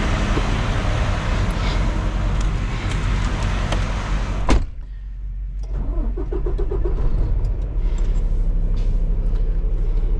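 Semi-truck cab noise: a steady diesel engine rumble with road hiss, cut by a sharp click about four and a half seconds in, after which the hiss drops away and a lower engine hum goes on.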